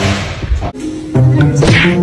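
Background music that cuts out briefly a little before the middle. A new tune of held notes then starts, with a swishing sweep.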